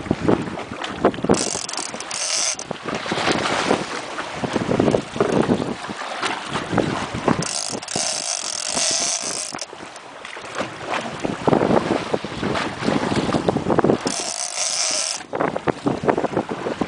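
Fishing reel's ratchet clicker ticking irregularly as line pays out to a drifting float. Wind buffets the microphone in three gusts of hiss.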